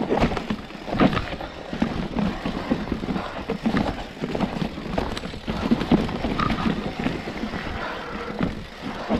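Orange Four mountain bike clattering and knocking irregularly as it rides over rocks and ditches on a steep stony descent, with wind rumbling on the microphone.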